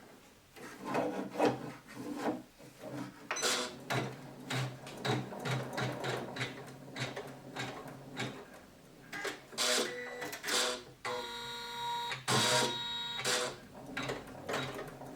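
Janome 500E embroidery machine running and stitching in stops and starts, its needle mechanism and motor sounding even, with no knocking: the machine is freshly adjusted and the sound is good.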